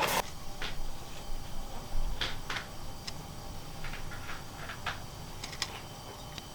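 Scattered light clicks and taps from hands handling the Blackmagic ATEM Mini Pro and its packaging, at irregular intervals, with a louder knock right at the start.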